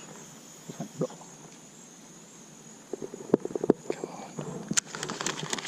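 Insects in the mangroves keeping up a steady high-pitched drone. Scattered clicks and knocks join in a few seconds in, becoming a quick run of small clicks and rattles near the end.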